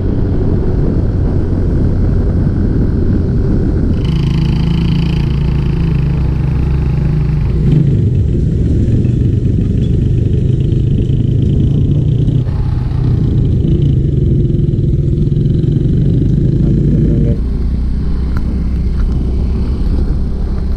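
Yamaha Mio Gravis scooter's single-cylinder engine running at riding speed, mixed with a heavy low rumble of wind and road noise. The sound shifts abruptly a few times.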